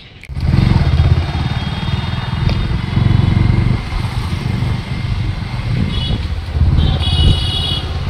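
Road traffic with motorcycles passing close by: engines running in a loud low rumble that swells and eases as the vehicles go past.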